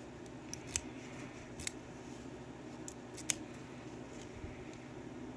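A few sharp, brief clicks and taps of small hard metal objects being handled, as locks and keys are taken out and turned over, over a steady low hum.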